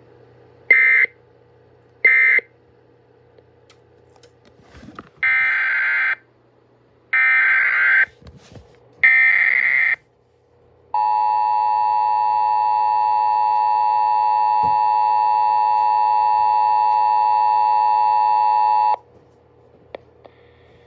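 Emergency Alert System tones: two short data bursts near the start, then three raspy one-second SAME header bursts about a second apart, then the steady EAS two-tone attention signal held for about eight seconds.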